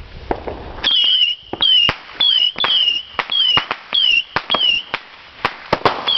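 A consumer firework sending out a quick string of short whistles, one about every half second, each dipping and rising in pitch, mixed with sharp crackling pops. It starts about a second in and keeps going.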